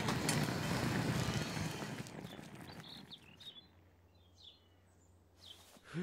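Dense crashing and rustling noise of a jeep being dragged into thick foliage, with a low rumble under it, fading out over about three seconds. Faint bird chirps follow.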